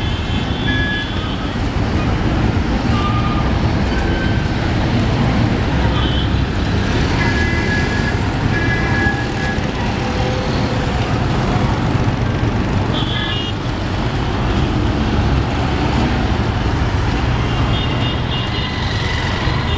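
Dense mixed road traffic at a busy junction: a steady rumble of motorbike, car and bus engines, with short vehicle horn toots now and then, bunched at the start, about a third of the way in, and near the end.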